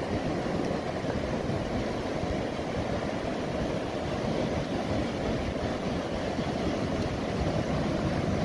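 Steady, low-pitched noise of wind buffeting the microphone over the wash of rough sea surf.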